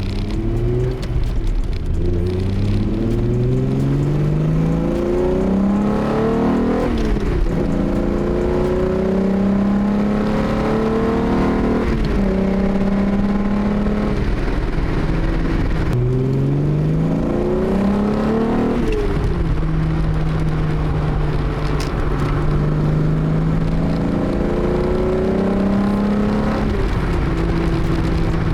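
VR6 engine of a Mk2 VW GTI being driven hard. The revs climb in steps, with a quick drop at each upshift, for the first several seconds and then hold steady at a cruise. A second run of climbing and shifting comes about halfway through and settles to a steady drone again.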